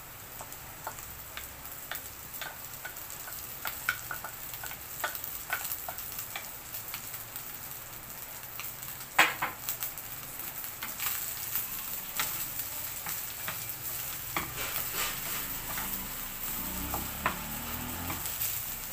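Rice and mixed vegetables frying in a non-stick pan: a steady sizzle, with a wooden spatula scraping and tapping against the pan as the rice is stirred in, and one sharper knock about nine seconds in.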